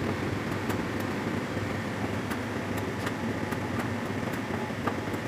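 Hotpoint tumble dryer running: a steady hum and whir from its drum motor and fan, with faint light clicks now and then. It is a test run after the heater element has been replaced.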